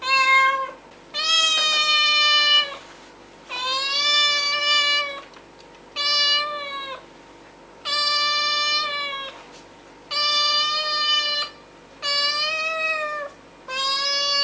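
Domestic cat meowing again and again: about seven long, drawn-out meows, each a second or more, holding a fairly steady high pitch with a slight rise and fall, with short pauses between them.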